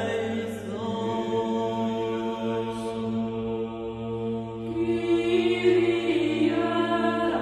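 Background music of slow, chant-like vocal tones over a steady low drone, each chord held for several seconds before moving to the next.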